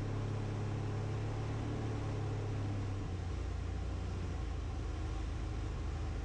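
Sonex YX light aircraft's engine and propeller droning steadily at low power on final approach. The note drops a little about three seconds in.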